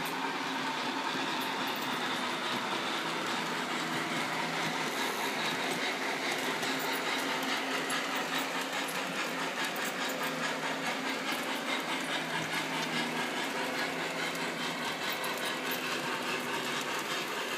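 O gauge model trains running on three-rail track: a steady rolling noise of wheels on the rails with a low motor hum and fine, rapid clicking.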